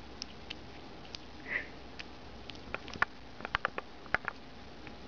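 A pet hedgehog chewing food, with quick wet smacking clicks that come thick and loud between about three and four and a half seconds in. A short snuffle about a second and a half in.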